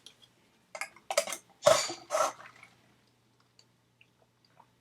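Coca-Cola sipped through a straw from a fountain-drink cup: a quick cluster of short slurping sips about a second in, followed by faint ticks of the cup being handled.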